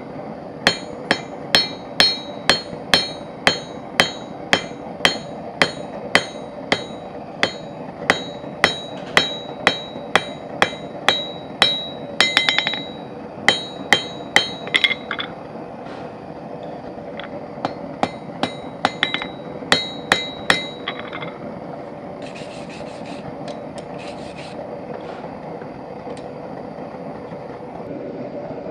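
Blacksmith's hammer striking a forged iron hinge on an anvil, about two ringing blows a second, bevelling the hinge's edges. The blows stop about halfway through, resume for a few seconds, then give way to a steady hum.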